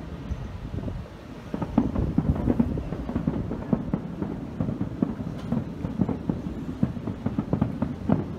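Aerial fireworks going off in a quick barrage: a dense string of sharp bangs and cracks that thickens about a second and a half in and keeps up.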